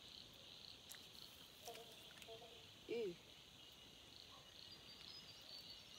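Faint, steady chorus of frogs calling, a thin high-pitched trill.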